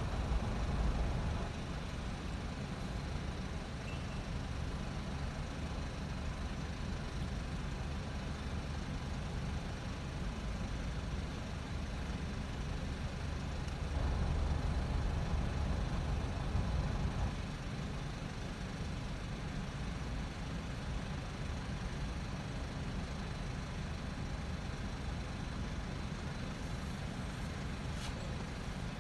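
Steady low rumble of a car's engine and road noise, heard from inside the cabin as it waits and creeps forward, swelling louder for a few seconds about halfway through.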